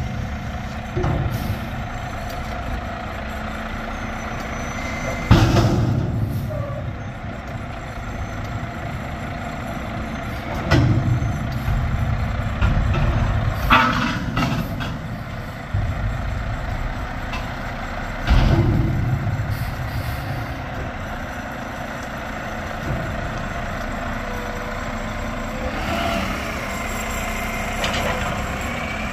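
Mack MRU garbage truck with a Heil front-loader body working a dumpster: its diesel engine runs and revs to drive the hydraulic arms. Several loud clanks and thumps come as the container is handled, about five, eleven and eighteen seconds in, with a hiss of the air brakes.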